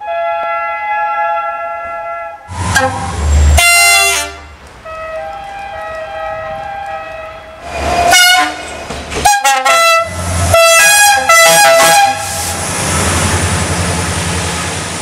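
Railway locomotive horns sounding several times: a long held chord at the start, another held tone in the middle, and a series of short blasts about eight to twelve seconds in. These are mixed with the loud rumble and hiss of a locomotive passing close by, which carries on steadily near the end.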